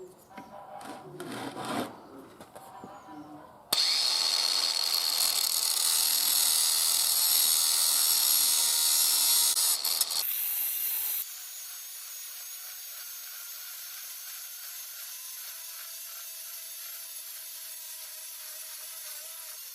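Loud, harsh power-tool noise on metal starts abruptly about four seconds in and stops about ten seconds in. After that comes a steady, quieter hiss with a faint hum.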